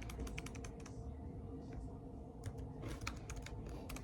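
Typing on a Chromebook laptop keyboard: quick, irregular key clicks that thin out for a second or so in the middle, then pick up again.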